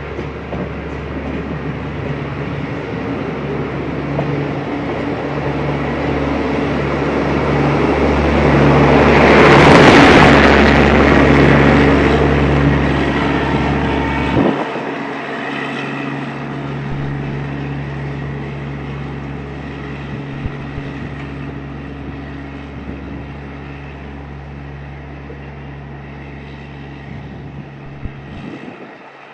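Diesel-hauled passenger train rolling past close by, a steady low engine hum under wheel and rail noise. It swells to its loudest about ten seconds in, then slowly fades. The deepest part of the hum cuts off about halfway through.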